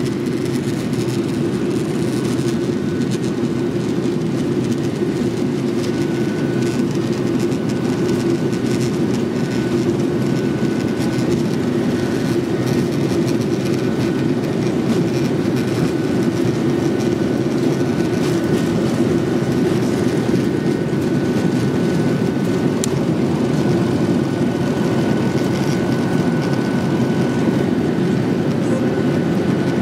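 Boeing 737-800's CFM56 turbofan engines running at takeoff thrust, heard from the cabin over the wing during the takeoff roll: a loud, steady rush with a steady high whine and the rumble of the wheels on the runway.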